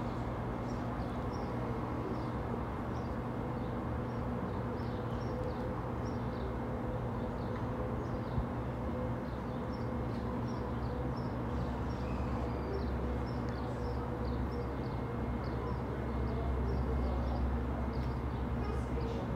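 Small birds chirping over and over above a steady low hum. A low rumble swells briefly near the end.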